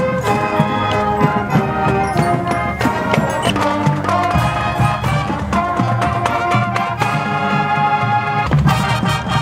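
Marching band playing loudly: brass and woodwinds together in full ensemble, with sharp accented attacks throughout.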